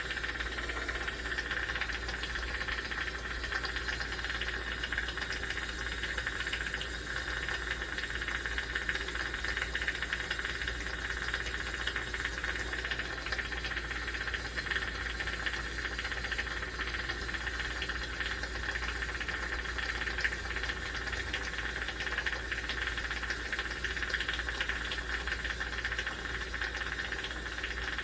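Jeweler's soldering torch flame hissing steadily while solder is flowed into a hollow Figaro necklace link.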